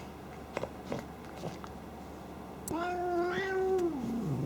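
Domestic cat giving one long, drawn-out meow, starting a little past halfway and dropping in pitch as it ends, after a few faint ticks.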